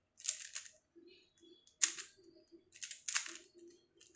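Stickerless MoFang Jiaoshi Mini 3x3 speedcube being turned with a layer offset to test corner cutting: a handful of short, sharp plastic clicks as the pieces snap past each other. Its corner cutting is only passable, a little tough on normal cuts.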